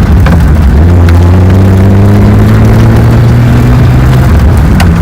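BMW E36's engine pulling under acceleration, heard from inside the car: the pitch drops at a gear change just after the start, climbs steadily for about four seconds, then drops at another shift and starts climbing again.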